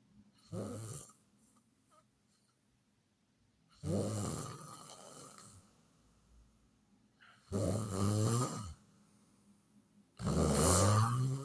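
Snoring: four snores on the in-breath, about three and a half seconds apart. The first is short, and the last two rise in pitch.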